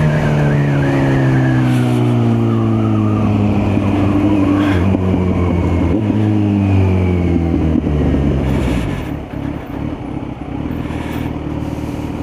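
Kawasaki Z900's inline-four engine with revs falling steadily as the bike slows, then settling to a steady idle from about nine seconds in.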